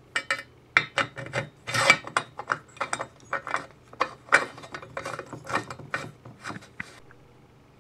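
Pump being screwed into the fuel tank of a Shmel-2 primus stove: a quick, even run of metallic scrapes and clicks from the threads turning, about three a second, stopping near the end.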